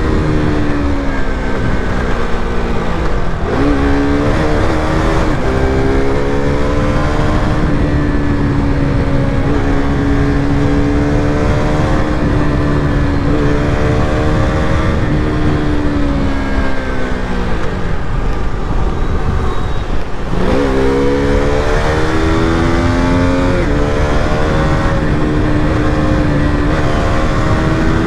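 KTM RC200's single-cylinder engine under way. Revs dip two to three seconds in, climb and hold steady, sink gradually from about sixteen to twenty seconds, then rise sharply and step up through the gears, all over a steady noisy rush.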